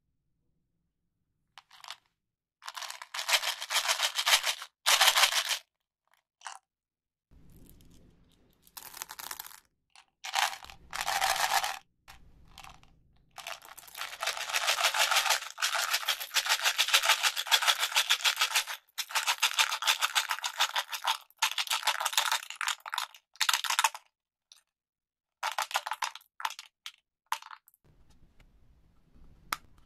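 Plastic candy packaging being opened and handled: the wrapper crinkles and tears in bursts lasting from one to several seconds, with short silent gaps between them; the longest burst runs about ten seconds in the middle.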